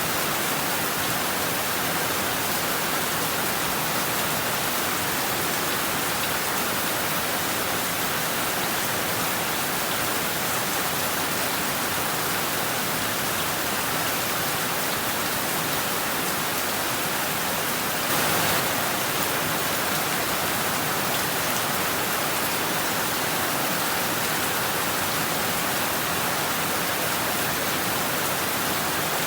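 Heavy rain falling steadily on rooftops and trees: a dense, even hiss, with one brief swell about eighteen seconds in.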